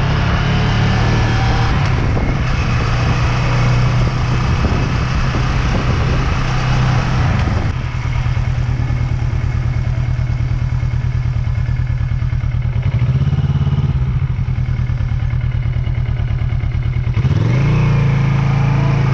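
Motorcycle engine running at road speed with wind and road noise. The engine note rises briefly about two-thirds of the way through and again near the end as the bike accelerates.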